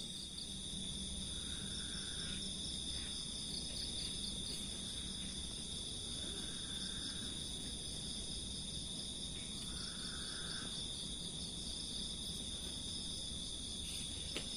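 Night insect chorus: crickets calling steadily at a high pitch, with three shorter, lower calls a few seconds apart, each lasting about a second.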